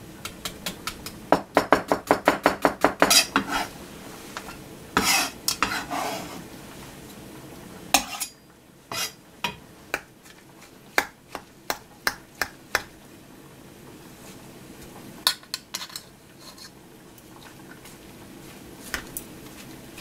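A metal fork clinking and scraping against a metal saucepan while tossing sliced onion and fish together. A quick, even run of clinks comes about a second in, another cluster near the middle of the first half, then scattered single clinks.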